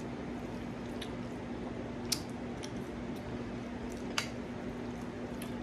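A person eating spaghetti close to the microphone: quiet chewing and mouth sounds, with a few short sharp clicks, the two loudest about two and four seconds in. A steady low hum runs underneath.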